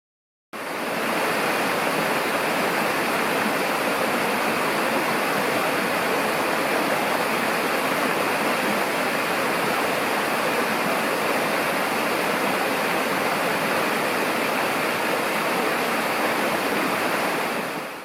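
Minoo River stream water babbling and rushing over rocks, a steady, even flow. It cuts in suddenly about half a second in and fades away at the end.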